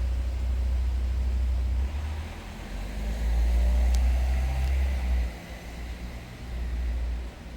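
Wind buffeting the microphone: a low rumble that comes and goes in gusts, easing off about two seconds in and again near the end.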